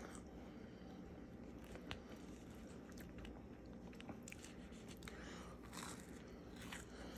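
Faint chewing and crunching of a bite of toasted grilled cheese sandwich, with scattered crisp clicks and a longer crunch about five seconds in.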